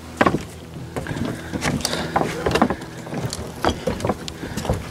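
Footsteps on old, weathered wooden planks: irregular knocks and creaks, several a second.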